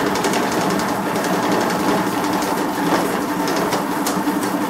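Count Lab NCS-3600 banknote counter running, feeding a stack of mixed polymer banknotes through its rollers. The motor whirs steadily under a rapid, even flicking of notes, about nine a second.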